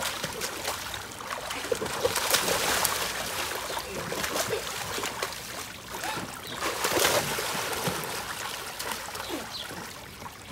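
Water splashing and sloshing in an inflatable pool as children wade and thrash through it, coming in uneven surges.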